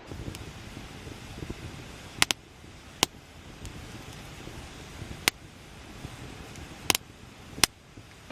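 Wood campfire crackling, with about five sharp pops of burning wood, two of them quick double snaps, over a low rushing noise.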